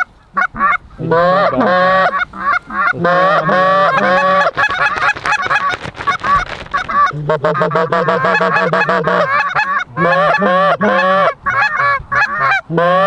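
Goose calls blown by hunters to bring in passing geese: a fast, loud run of honks and clucks with only brief breaks, picking up about a second in.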